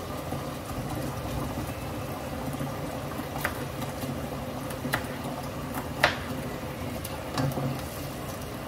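Kitchen cooking noise: a steady watery hiss, with a few sharp clicks and knocks about three and a half, five, six and seven and a half seconds in, the one near six seconds the loudest.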